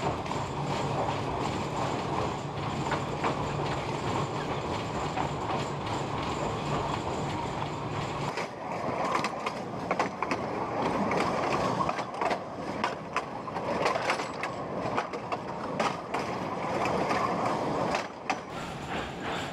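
Tram running on old, crooked rails. A steady low hum and rumble for the first eight seconds or so, then the wheels clattering and knocking over the track for about ten seconds, easing off near the end.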